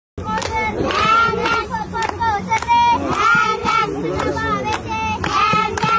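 A group of children singing together while clapping their hands in time, about two claps a second.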